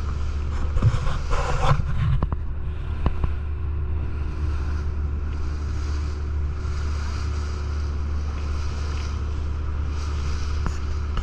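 Fishing boat's engine running steadily at cruising speed, a constant low hum, with water rushing along the hull and wind on the microphone. A few light knocks come in the first few seconds.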